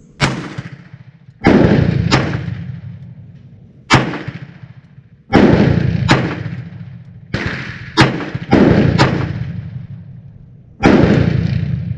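Enfield No. 2 Mk I** .38/200 revolver fired six times with heavy-crimped handloads, each shot a sharp report with a long echoing tail. Further sharp reports fall in between, giving about eleven in all over the stretch.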